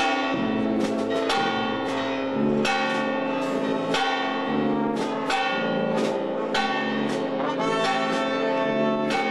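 Brass band playing sustained chords while church bells ring over it, with a fresh bell strike every half second to a second.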